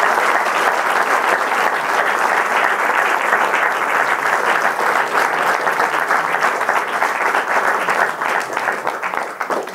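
Audience applauding: a dense, steady patter of many hands clapping that eases off slightly near the end.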